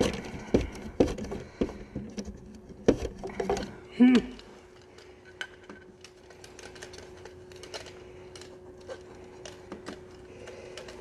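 Close handling noise of a phone camera being adjusted on its mount: a quick run of clicks, knocks and rattles, the loudest about four seconds in. After that only a few faint ticks over a low steady hum.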